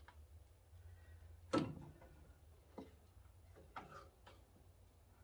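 A few sharp metal knocks and clanks as the drive belt is worked back onto the tractor's alternator and pulleys. The loudest comes about a second and a half in, with three lighter ones after it.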